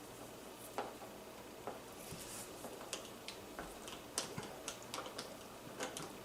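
Faint, irregular clicks and taps of a hand screwdriver working the screws out of a Samsung dishwasher's lower front cover. The cover is being removed to get at water leaking underneath.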